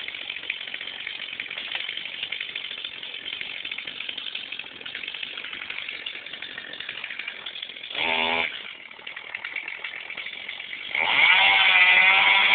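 Chainsaw running at a rattly idle, revved briefly about eight seconds in and again, louder and for a couple of seconds, near the end.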